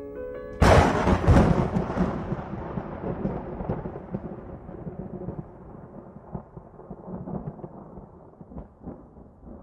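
Thunderclap: a sudden loud crack about half a second in, then a rolling rumble that slowly fades, with a few small crackles in it. A few soft piano notes end just before the crack.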